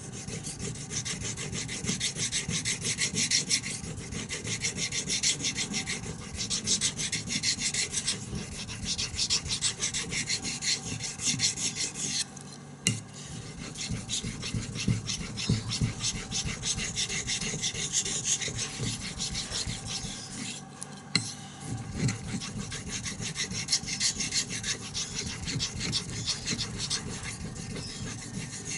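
Fallkniven F1 knife blade stroked quickly back and forth on a sharpening whetstone, a steady rasping scrape with a few short breaks, as the edge along the belly is restored.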